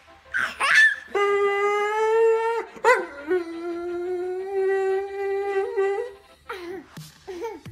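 Doberman pinscher howling: a short high, wavering cry just after the start, then two long steady howls, the second about three seconds long, and a few short falling cries near the end.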